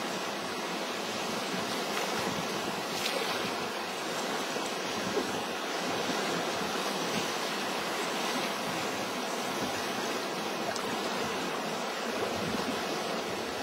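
Steady rush of fast-flowing river water, an even wash with no single splashes standing out.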